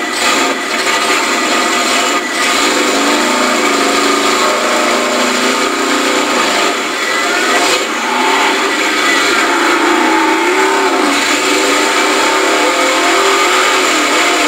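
A 4x4 mud truck's engine running loud and revving, its pitch rising and falling over and over.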